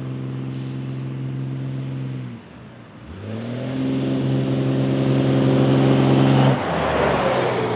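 Dodge Ram pickup's 12-valve Cummins diesel under acceleration. The engine note holds steady, dips briefly about two and a half seconds in, then climbs steadily in pitch and gets louder until it cuts off about six and a half seconds in. A rushing noise follows.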